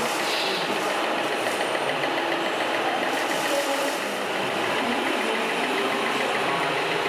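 Scale radio-controlled model truck running, its engine sound steady like an idling diesel, with a faint regular ticking.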